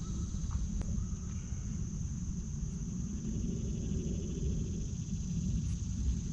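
Steady high-pitched insect chorus of crickets, over a low uneven rumble of wind on the microphone.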